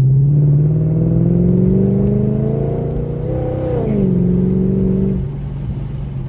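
Dodge Charger's cammed Hemi V8 pulling away under throttle, its pitch rising steadily for about three and a half seconds, dropping sharply as it shifts up about four seconds in, then easing off a second later.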